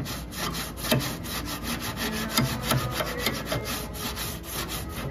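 Coarse 80-grit sandpaper on a hand block rasping over bare steel body panel in quick back-and-forth strokes, about four a second. The sanding is guide-coat-style marking that shows up the remaining high and low spots of a pulled-out dent.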